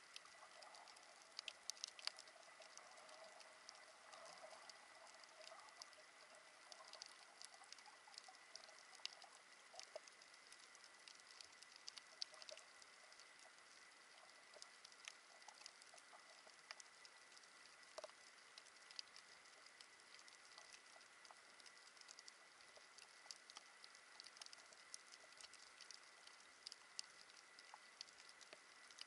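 Faint underwater reef crackle: a dense, irregular scatter of sharp clicks over a soft hiss, typical of snapping shrimp on a coral reef, heard through an action camera's waterproof housing. A faint steady high tone runs underneath.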